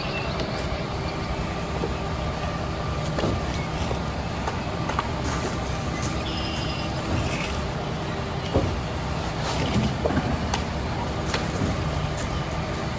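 A vehicle engine running steadily, with scattered knocks and clatter over it.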